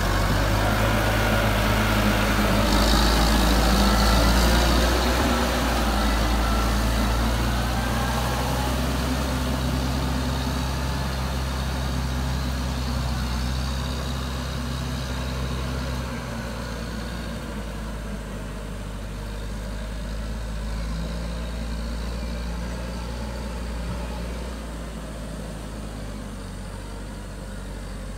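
Perkins turbo diesel engine of a Bombardier Muskeg MCD2 tracked carrier running under load as it drives off. It grows louder about three seconds in, then fades steadily as the machine moves away.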